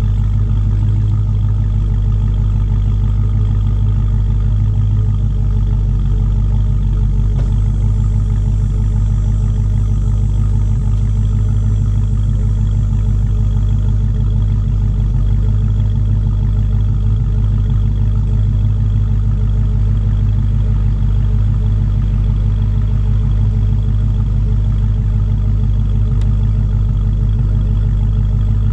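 Supercharged 6.2-litre V8 of a Dodge Charger Hellcat idling steadily, its exhaust note heard at the rear.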